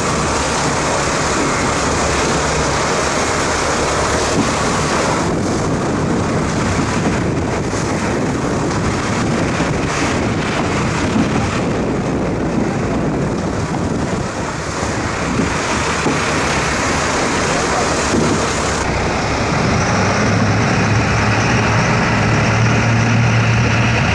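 Wind buffeting the microphone over rushing sea water and the drone of a sport-fishing boat's engine. A steady low engine hum grows stronger near the end.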